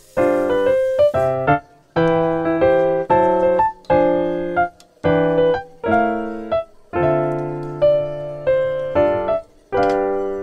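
Background music: a piano playing a run of short chords, each starting sharply and fading or stopping after about half a second to a second.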